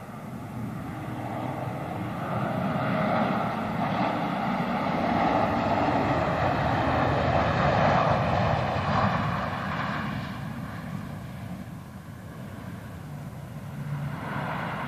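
Jet airliner taking off at full thrust: the engine noise swells to its loudest as the aircraft rotates and lifts off, then fades, with a steady whine over the rush.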